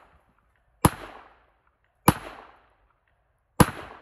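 Three .45 ACP gunshots about a second and a half apart, each followed by a short echo.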